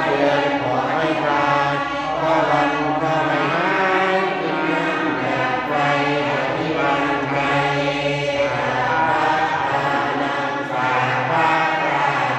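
Buddhist prayer chanting in Thai temple style: a man chants steadily into a handheld microphone while the congregation chants along with him, one continuous flow of voices.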